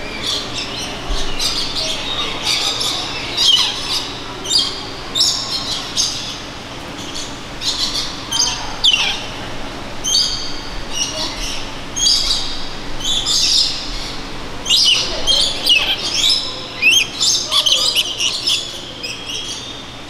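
A flock of lorikeets giving short, shrill screeching calls over and over, several birds calling at once.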